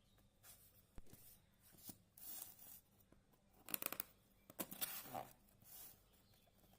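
Faint, irregular rustling and scraping of a smartphone's retail box and packaging being handled and opened, with a small click about a second in and the loudest rustles about four seconds in.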